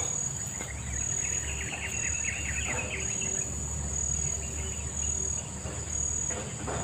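Insects shrilling in a high, even buzz that pulses on and off about once a second, over a low steady rush of a fast-flowing river.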